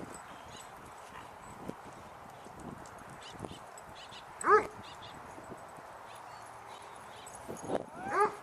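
A dog barks twice: a short, high bark about four and a half seconds in, and a second near the end.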